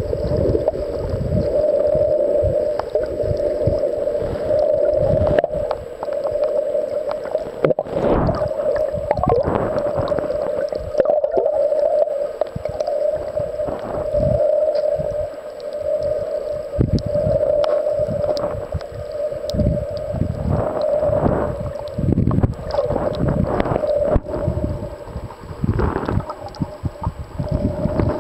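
Muffled water noise from a camera held underwater while snorkeling: irregular swishing and gurgling rushes of water over a steady low tone.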